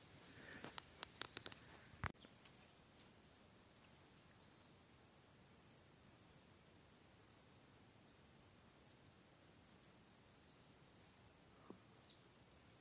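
Faint, high-pitched steady insect chirring in dry scrub, with a few light clicks in the first two seconds.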